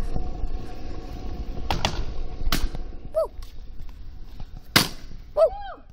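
Kick scooter on a paved path: a low rumble with a few sharp, loud clacks of the scooter hitting the pavement, and short squeals that rise and fall near the middle and end.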